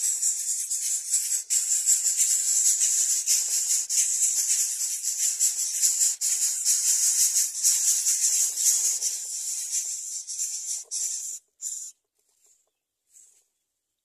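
Greater coucal chicks hissing in the nest as they are fed: a loud, dense, raspy hiss with a rapid flutter that cuts off suddenly near the end.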